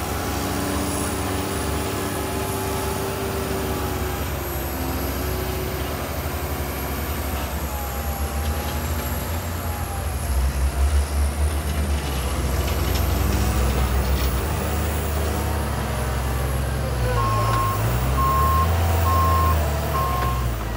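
Heavy snow-clearing vehicles running, engines rising and falling in speed, with a reversing beeper starting to beep about three-quarters of the way in.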